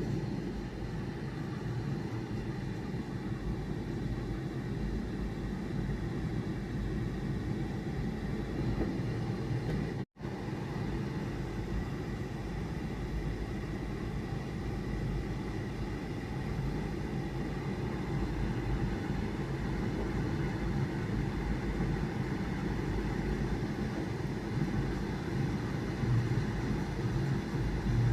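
Steady low rumbling background noise with no clear single source. It cuts out for an instant about ten seconds in.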